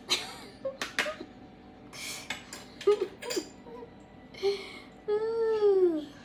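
Things knocking and clattering in a kitchen sink as they are handled: several sharp knocks and short scrapes. Near the end comes a drawn-out vocal sound, about a second long, falling in pitch.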